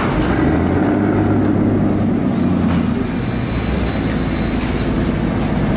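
Engine of a wooden passenger boat running under load as the boat pulls away from the jetty: a steady low drone that steps up in level at the start, with a faint high whine joining about two seconds in.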